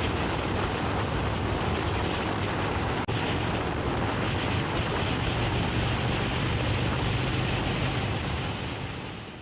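Motorcycle running at road speed, its engine a steady low hum under heavy wind rush on the microphone. The sound dips briefly about three seconds in and fades out near the end.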